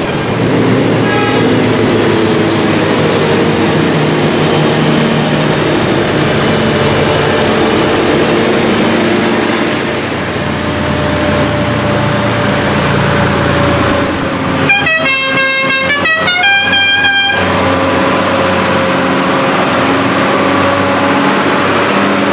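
Diesel tractor engines running as tractors pass one after another, among them an air-cooled Deutz and a Fiatagri 130-90 Turbo near the end. About two-thirds of the way through, a multi-note musical horn plays a short tune of stepped notes for a couple of seconds.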